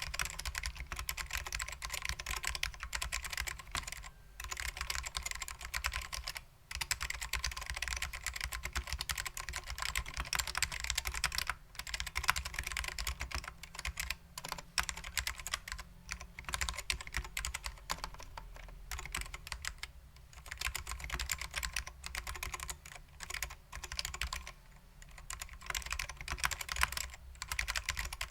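Continuous fast typing on a custom 60% keyboard with lubed SKCM Black ALPS switches, vintage Apple PBT keycaps and a stainless steel plate: a dense run of clicky keystrokes, with a few short pauses.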